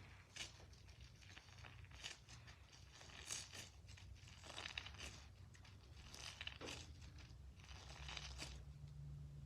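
A squishy toy being squeezed and handled: soft rustling, crinkly bursts at irregular intervals, several per few seconds.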